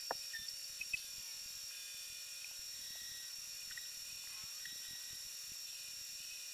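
Homemade lathe running with a self-centering chuck spinning a steel bar while a carbide-insert tool cuts it: a steady high-pitched whine over a low hum, with a few small ticks near the start.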